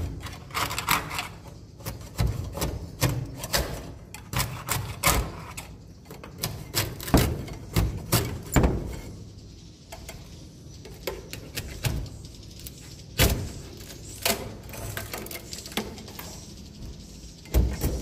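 Long-pole swiftlet nest harvesting tool knocking and scraping against wooden nesting planks, prying swiftlet nests loose into its net: a long run of irregular sharp knocks and scrapes.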